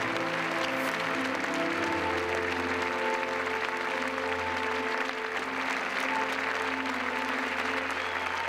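Audience applauding, with music of long held notes playing underneath.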